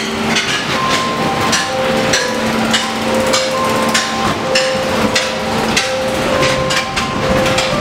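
Haunted-house ride car rattling along its track: a steady stream of irregular knocks and clatter, with long held tones at shifting pitches over it.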